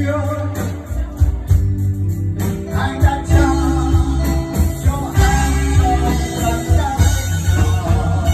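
A man singing a Vietnamese pop song into a microphone through PA speakers, over loud accompaniment with deep bass and a steady beat.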